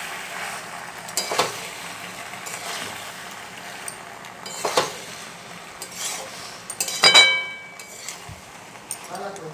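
A spatula stirring and scraping sauced macaroni around a metal wok over the gas flame, with a steady faint sizzle. A few scrapes stand out, and about seven seconds in a ringing metallic clink of spatula on pan is the loudest sound.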